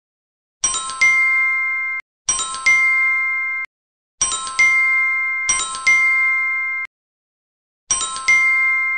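A bright chime effect played five times at uneven intervals. Each is a quick ding followed by a held chord of bell-like tones that cuts off after about a second and a half.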